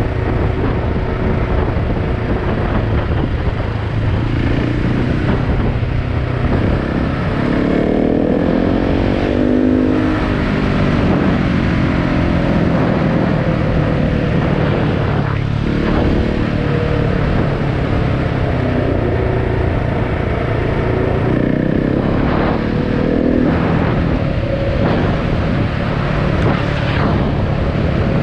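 KTM 690 Enduro's single-cylinder engine running under way, heard from on board the bike. Its pitch rises and falls with throttle and gear changes, climbing clearly about eight seconds in and again about twenty-two seconds in.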